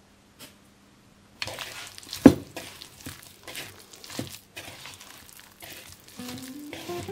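A hand mixing and squeezing a soft, sticky dough in a wooden bowl: irregular wet squishing and rubbing starting about a second and a half in, with one loud knock against the bowl just after two seconds. Background music comes in near the end.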